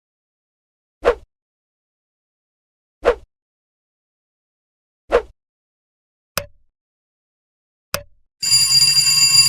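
Editing sound effects: three short swishing pops about two seconds apart, two sharp clicks, then a bright bell-like ringing with several high tones and a quick shimmer, starting near the end.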